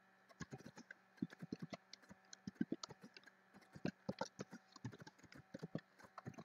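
Computer keyboard being typed on: quick, irregular key taps, several a second, as a few words are typed.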